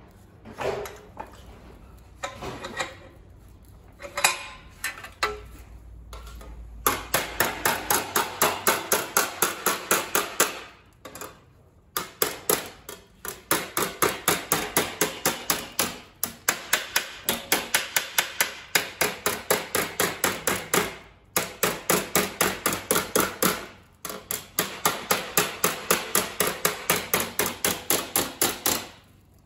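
Hammer blows on a strip of sheet steel clamped in a bench vise, bending it over the jaws. A few scattered knocks at first, then quick, even blows about three to four a second, in runs of a few seconds with short pauses.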